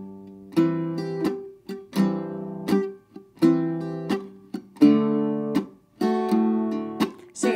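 Octave mandolin strummed in two-finger open chords, each chord left to ring out briefly and then damped short by fingers laid across the strings, mixing open strumming with chop-style muting. The strokes come at about one and a half a second, alternating bass notes and chords with upstrokes in between.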